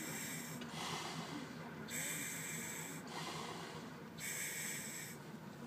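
Poseidon 7 electronic closed-circuit rebreather being breathed through its mouthpiece in open-circuit mode, gas hissing in pulses about every two seconds with quieter breaths between. These breaths are the breathing step of the unit's pre-dive self-test.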